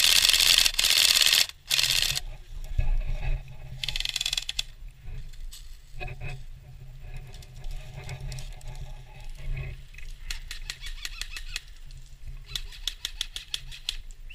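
Airsoft guns firing in rapid clicking bursts, two strings of shots late on, after a loud rushing noise in the first two seconds.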